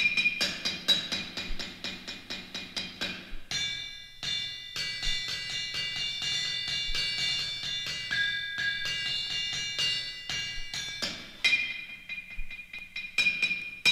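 Hammers striking metal anvils in a quick, even rhythm, each blow ringing with a high metallic tone. About three and a half seconds in, the blows thin out and several ringing pitches sound together. About eleven seconds in, the fast hammering returns.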